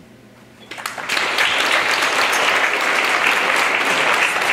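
Audience applauding in an auditorium, starting about a second in and then holding steady, at the end of a speech.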